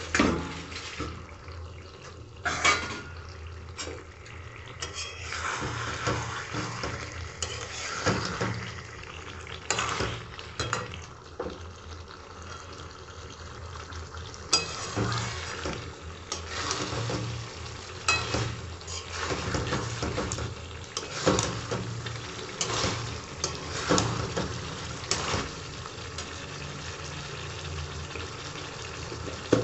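Metal spatula scraping and knocking against a metal pan at irregular intervals while stirring a thick chicken and jackfruit-seed curry, with the curry frying underneath.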